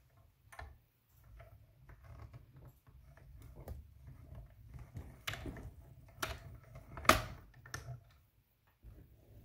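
Compact hand-cranked die-cutting machine being cranked, rolling a cutting-plate sandwich with dies through its rollers: a low rumble under irregular clicks and knocks, the sharpest about seven seconds in.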